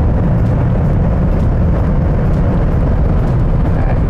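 Steady, dense roar of wind and tyres inside the cabin of a BMW M760Li travelling at close to 300 km/h.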